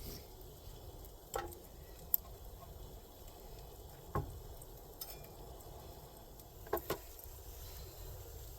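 Hamburger and jalapeños sizzling quietly in a small cast iron pan, with a handful of sharp clinks and taps of a utensil against the pan.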